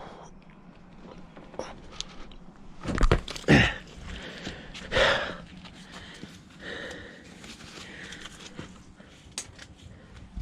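Loud, breathy panting with a few small clicks and knocks, with two strong breaths about three seconds in and another about five seconds in.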